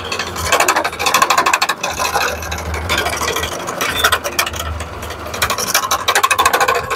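Motorised coconut scraper running, its spinning head rasping against the flesh of a coconut half pressed onto it, over a steady low motor hum. The scraping comes in uneven bursts as the coconut is turned against the head.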